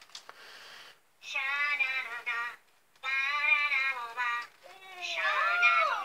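Furby toys singing in high, synthetic electronic voices, in three sung phrases with short pauses between them; near the end two Furbies sing over each other.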